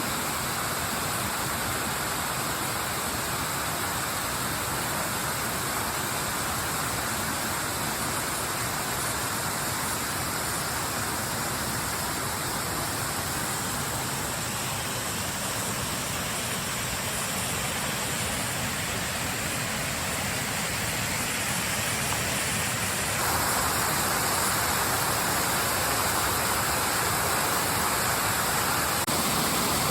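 Waterfall running: a steady rushing hiss of falling water, a little louder and brighter about three-quarters of the way through.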